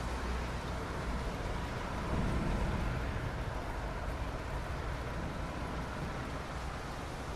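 Soft rain falling on asphalt: a steady, even hiss over a low rumble, with the rumble swelling briefly about two seconds in.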